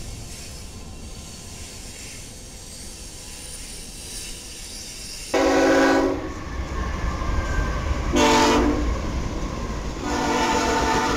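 Low rumble of a passing freight train, then a BNSF freight locomotive's multi-chime air horn sounds three blasts as the locomotive approaches at speed: two short blasts about three seconds apart, then a longer one starting near the end.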